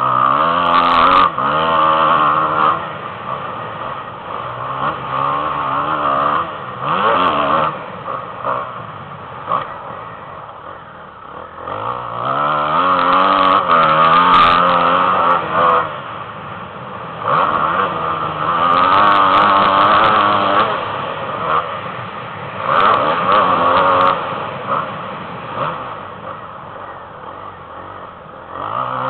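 Off-road motocross bike engine ridden hard round a dirt track, heard from on board. It revs up in repeated bursts of throttle, the pitch rising through each one, then drops back between them.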